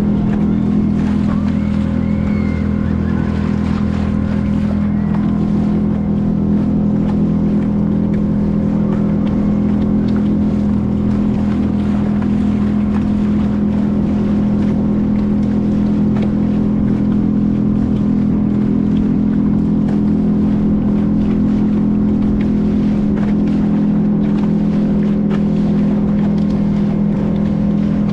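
A boat's motor running steadily at a constant speed, a loud even drone that holds one pitch throughout, with wind and water noise over it.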